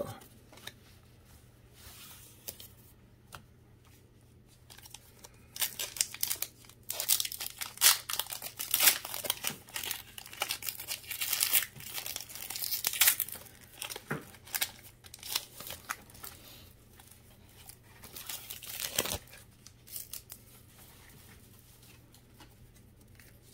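The foil wrapper of a Pokémon trading card booster pack is torn open and crinkled by hand. A dense burst of tearing and crackling starts about five seconds in and lasts several seconds, followed by scattered crinkles for a few seconds more.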